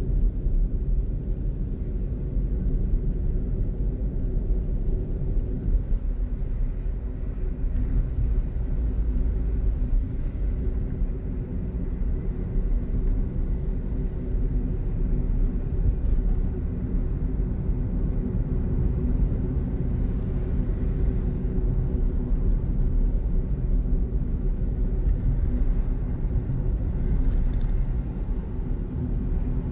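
Steady low rumble of a car driving, with engine and road noise heard from inside the cabin.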